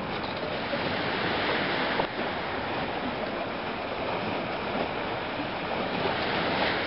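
Steady rushing noise of wind and lake water at the pier wall, with a single click about two seconds in.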